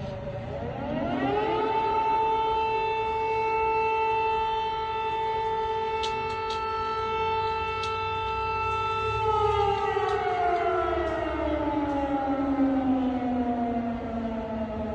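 Civil defense air-raid siren wailing. It rises in pitch about a second in, holds one steady tone for about eight seconds, then slides slowly down in pitch over the last five seconds.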